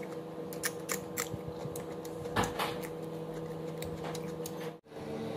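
Close-up eating sounds: scattered small clicks and smacks of chewing and of fingers picking at fried chicken and rice, over a steady hum. The sound drops out for a moment near the end.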